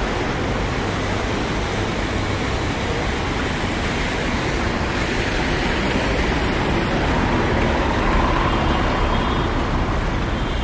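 Busy city street traffic: a steady, dense rumble and hiss of passing cars, buses and trucks, with no single vehicle standing out.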